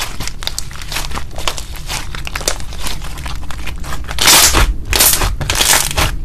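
Thick, doughy slime being kneaded and squeezed by hand, giving a dense run of small crackling, crinkling pops. There are several louder squishes about four to six seconds in.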